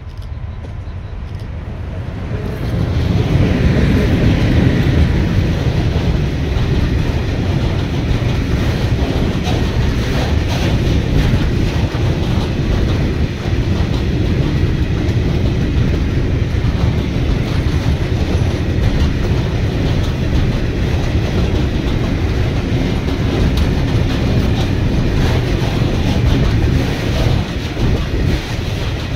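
Pafawag ET22 electric locomotive approaching and passing close by about three seconds in, followed by a long freight train of open wagons rolling past, wheels running steadily on the rails.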